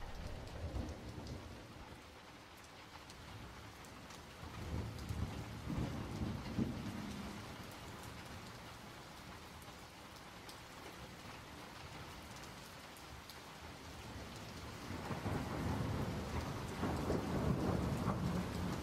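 Steady rain-like hiss with low rolling rumbles like thunder. The rumbles swell about five seconds in and again, longer, from about fifteen seconds in.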